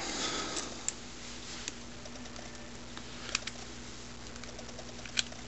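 Small metal parts of an antique Remington double-barrel derringer handled during reassembly: a brief rustle, then a few light, separate clicks, the loudest about five seconds in.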